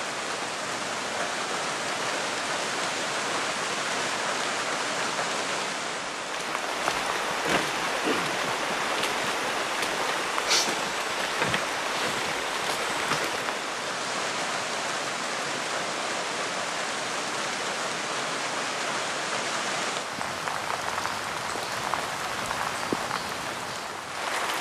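Steady rain falling on dense rainforest foliage, with a few sharper taps in the middle.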